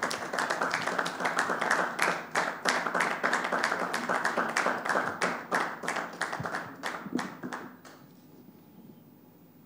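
Small studio audience clapping, a dense run of hand claps that dies away about eight seconds in.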